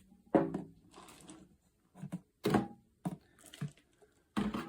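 A handful of short knocks and clicks from handling the coffee maker and its milk frother, the loudest about halfway through.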